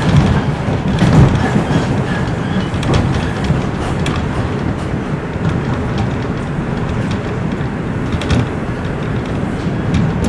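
A Toronto Rocket subway train running along the track, heard from inside the car: a steady rumble of wheels on rail, with a few sharp clicks from the wheels.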